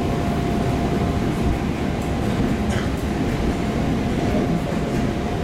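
EP2D electric multiple unit running between stations, heard from inside the carriage: a steady rumble of wheels and running gear with a constant thin hum over it, and a faint brief squeal about three seconds in.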